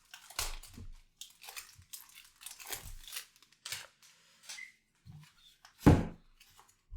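Plastic protective wrapping being peeled and crinkled off a new keyboard, in irregular soft crackles and rustles. One louder thump comes about six seconds in.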